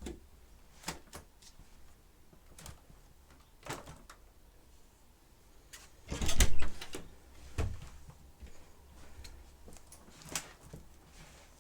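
Scattered clicks and knocks of things being handled, with a louder clattering bump about six seconds in and a few smaller knocks after it. No vacuum motor is running.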